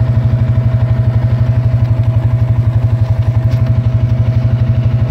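Polaris Sportsman 550 EFI ATV's single-cylinder engine running steadily at low revs, a rapid, even pulse with no revving.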